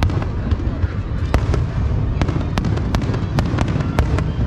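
Aerial firework shells bursting in a display: a quick, irregular run of a dozen or more sharp bangs and crackles over a steady low rumble.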